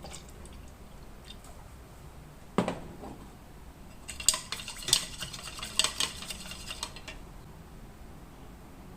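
A single knock about two and a half seconds in, then a metal spoon stirring in a cup, clinking rapidly against its sides for about three seconds.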